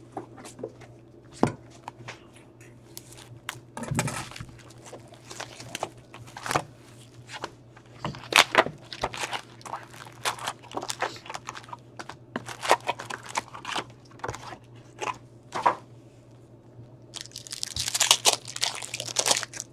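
Upper Deck hockey card hobby box being opened by hand: cardboard flaps and card packs handled and set down on a glass counter, with scattered taps, clicks and rustles. Near the end, a card pack's wrapper is torn open with a crinkly rip.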